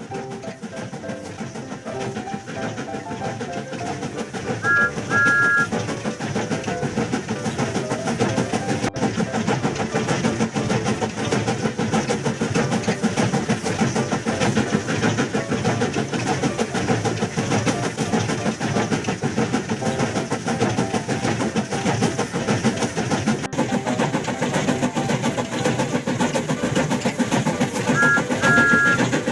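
Background music fades out in the first few seconds into a train running sound, a steady rhythmic chugging and rattle. A horn gives a short two-note toot about five seconds in and again near the end.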